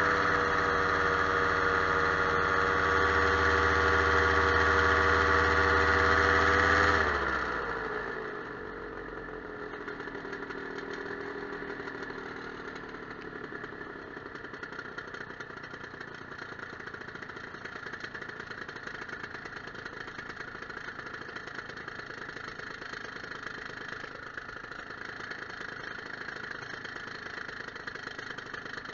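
Small propeller aircraft's engine running steadily at power, then throttled back about seven seconds in: its pitch slides down and it fades, leaving mostly steady rushing airflow noise as the aircraft comes down toward the field.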